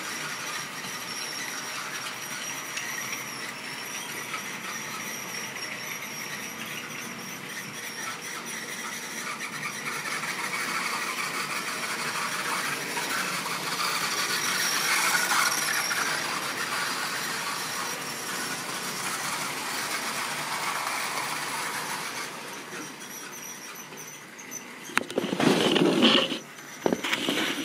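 OO-gauge model train running round a curve of track: a steady whirr of wheels and motor that grows louder as the train passes closest, about halfway through, then fades a little. Near the end there are a few loud knocks and rubbing noises from the camera being handled.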